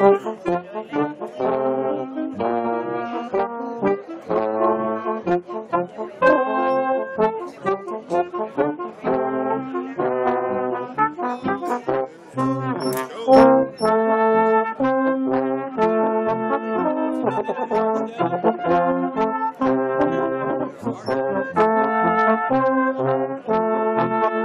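Pep band playing a tune, led by brass, in short rhythmic notes with drum hits keeping the beat.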